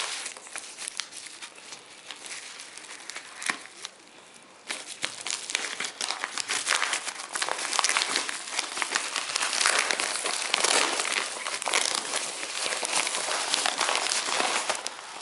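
White padded paper mailing envelope being handled and opened by hand, its paper crinkling and crumpling. The crinkling is fainter at first and grows louder and denser about four and a half seconds in.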